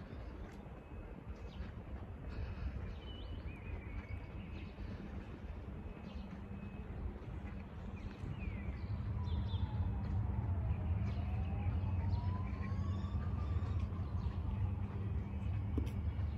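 Outdoor city ambience: a steady low rumble with small birds chirping now and then. The rumble grows louder about halfway through, and a faint whining tone falls and then rises in pitch over several seconds.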